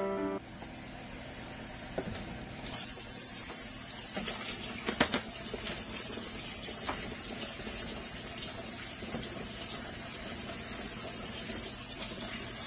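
A steady hiss starts abruptly about three seconds in and runs on evenly, with a few light clicks over it.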